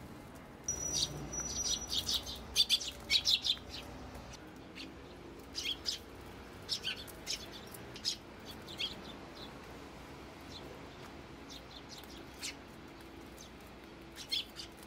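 Eurasian tree sparrows chirping: a quick run of high, short chirps in the first few seconds, then scattered single chirps and short calls for the rest.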